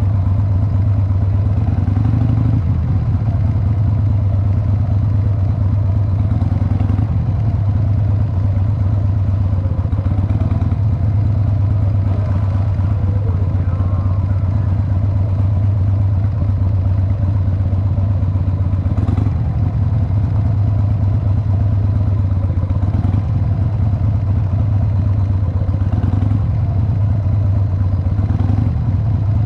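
Motorcycle engine running steadily at low revs while the bike rolls slowly along, its exhaust pulsing evenly with no revving.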